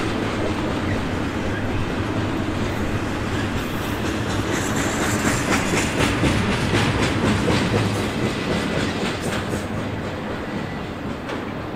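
Double-stack container freight train rolling past, its wagons' wheels clattering and rumbling on the rails. The sound fades near the end.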